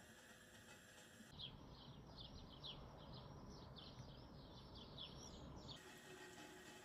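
Faint bird chirping: a quick run of short, high chirps, about three a second, starting about a second in and stopping about a second before the end, with faint room tone around it.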